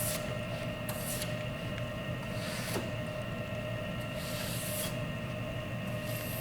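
A brush sweeping acrylic chips and dust off the workpiece in short swishes, about five strokes spaced a second or so apart, over a steady shop hum.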